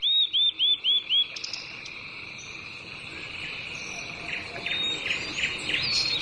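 Bird calls: a fast series of five arched high chirps at the start, then scattered chirps over a steady high insect drone.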